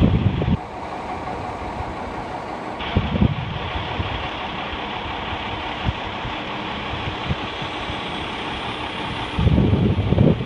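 A steady engine running, with gusts of wind buffeting the microphone at the start, about three seconds in, and near the end.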